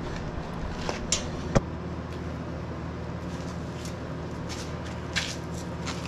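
A steady low machine hum, with a few short knocks and clicks over it; the sharpest knock comes about a second and a half in.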